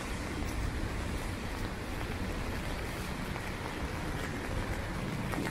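Traffic on a rain-soaked city street: a steady noise of tyres on the wet road, with a low rumble of engines.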